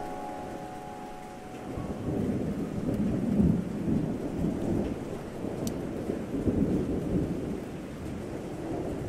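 Thunder rumbling over steady rain, swelling twice: a few seconds in and again about two thirds of the way through. The last held notes of music fade out in the first second or so.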